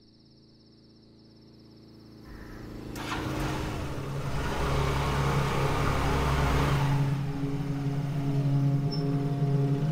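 Motor scooter riding up with its engine running: a rushing engine noise swells about two seconds in and eases off after about seven. A steady low music drone runs beneath it and holds on after, with faint crickets at the start.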